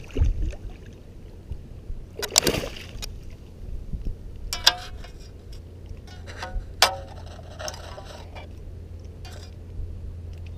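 A hooked flounder splashing at the water's surface as it is brought to hand, with two loud splashes, at the start and about two and a half seconds in, then a couple of sharp knocks a few seconds later.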